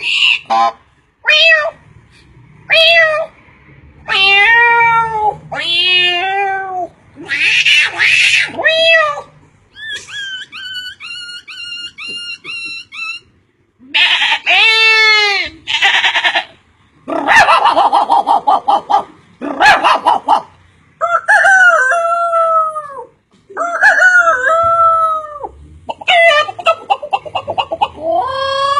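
A person imitating animal calls with his mouth, one after another: crowing like a rooster, howling like a dog, and a run of short bird-like chirps in the middle.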